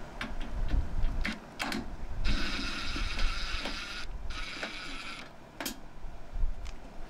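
Cordless power driver running screws out of a microwave's sheet-steel casing: two runs of its motor whine, about two seconds and then about one second, with small clicks of the tool and screws being handled around them.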